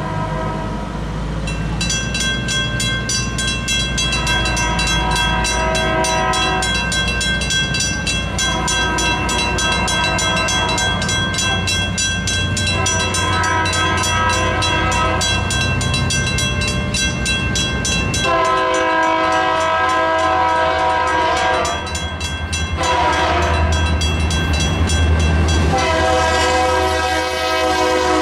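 Railroad crossing signal bell ringing rapidly and steadily, while an approaching Union Pacific GP60E diesel locomotive sounds its horn in a series of long blasts for the crossing. The locomotive's low engine rumble sits underneath.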